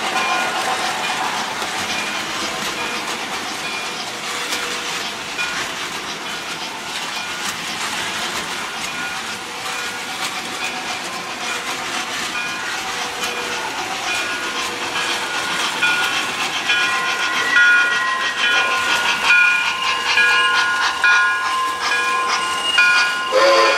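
Model trains running on the layout: a steady hiss with quick clicking of wheels over the track, and whining tones that grow louder over the last several seconds as a locomotive comes close.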